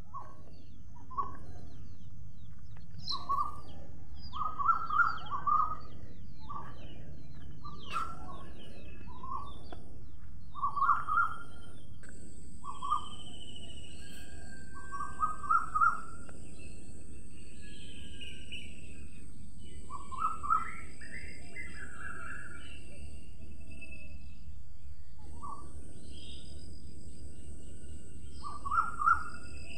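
Birds chirping in short clusters of quick notes every few seconds over a steady low rushing background noise.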